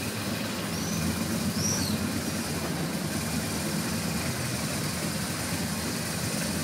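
Car engine running steadily at low speed, heard from inside the car, with a low hum throughout. Two short high chirps sound about one and two seconds in.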